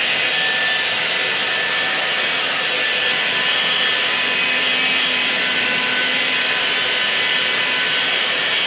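Handheld hair dryer running steadily: a constant rushing hiss with a faint steady whine.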